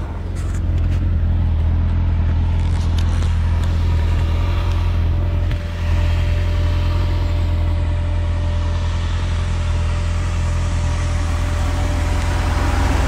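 Touring motorcycle engine idling at a standstill, a steady low rumble with a brief dip about five and a half seconds in.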